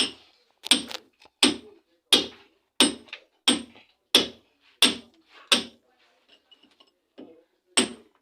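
Hand hammer striking hard in a steady rhythm, about one blow every 0.7 seconds. Nine blows come in a row, then a pause of about two seconds, then one more near the end.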